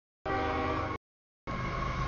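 CSX freight train passing a grade crossing: a steady multi-note horn sounding over a low locomotive rumble. It comes in two pieces of under a second each, cut off abruptly with dead silence between them.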